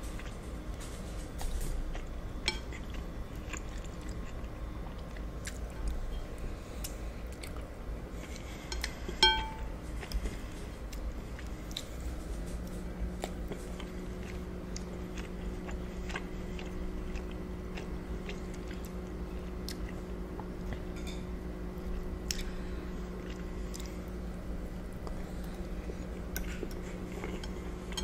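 Close-miked chewing and wet mouth sounds of eating lobster ravioli, with many small clicks and a fork touching a bowl. One ringing clink comes about nine seconds in. A steady low hum starts about halfway through.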